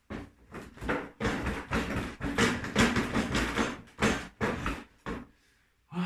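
Tools and metal engine parts clanking and rattling in a dense, irregular run of knocks during engine removal, stopping about five seconds in, with one more short clatter near the end.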